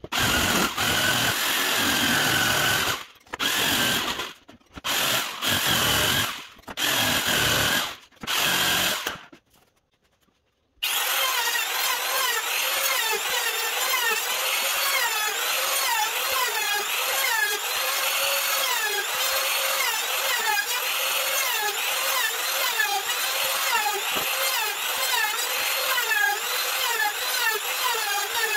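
A jigsaw cuts MDF in several short bursts, stopping and starting. After a pause of near silence, a compact trim router runs steadily while it rounds over the edges of the MDF bracing.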